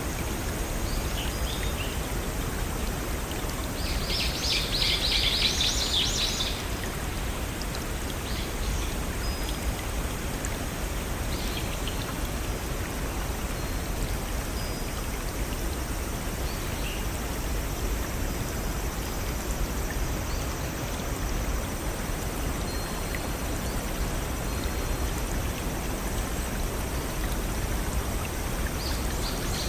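Steady rushing of a small stream over little waterfalls. A bird gives a quick run of rapid high notes about four to six seconds in, and a few brief chirps come here and there.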